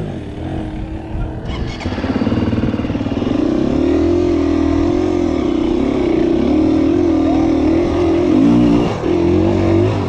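Single-cylinder four-stroke engine of a KTM 250 EXC-F dirt bike running at low revs as the bike creeps forward. The pitch rises and falls with the throttle, and the engine gets louder about two seconds in.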